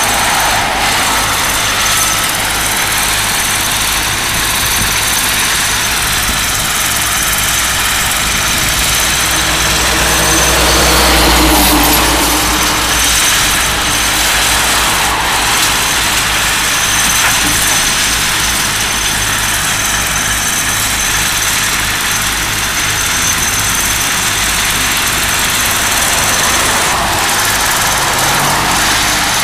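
Heavy-equipment diesel engines running steadily as a Cat 311D LRR excavator works a dirt screener, with a louder low swell peaking about eleven seconds in.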